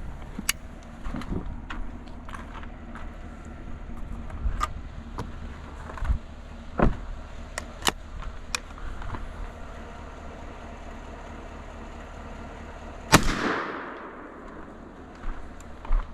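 A single shot from a 20 gauge single-shot break-action shotgun about 13 seconds in, ringing off for about a second after the crack. Before it come a few sharp clicks and knocks.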